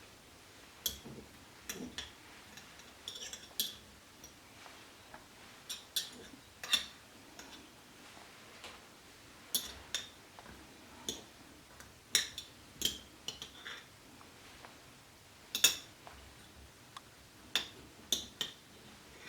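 Light, irregular clicks and clinks of a kitchen utensil against a jar and a crock pot as pepperoncini peppers are picked out and dropped onto the pork chops.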